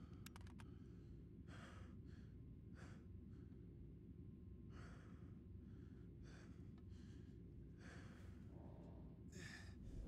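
Faint breathing from a man: a series of breaths a second or two apart, over a low steady ambient hum. A few light clicks come near the start.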